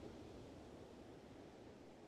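Faint, steady beach ambience: an even rushing of wind and distant surf.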